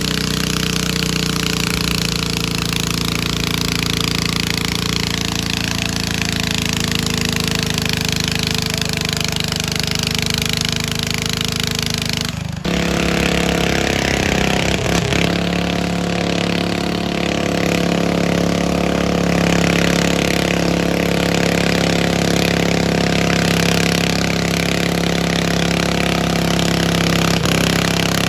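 Loud, steady running of a pulling garden tractor's engine. About halfway through, the sound changes abruptly and gets a little louder.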